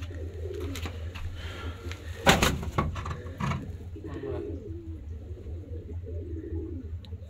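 Domestic pigeons cooing again and again, over a steady low hum. One brief loud noise breaks in about two seconds in.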